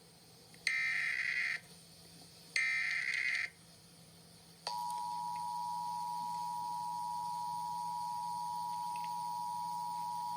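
Emergency Alert System tones announcing a tornado warning. First come two SAME data-header bursts, each about a second long and a second apart. About halfway through, the steady two-tone attention signal at 853 and 960 Hz begins.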